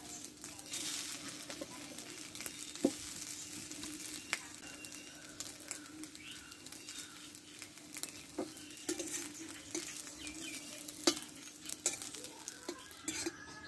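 Pieces of semolina-and-milk cake sizzling as they shallow-fry in ghee in an aluminium kadai, a steady hiss with a few sharp clicks scattered through it.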